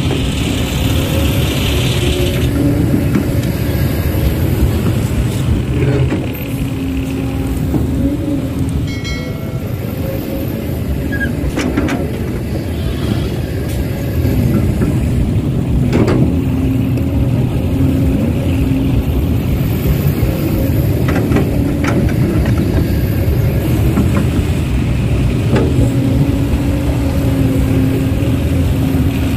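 Heavy diesel engine of earthmoving machinery running steadily, easing slightly for a few seconds mid-way, with a few sharp knocks.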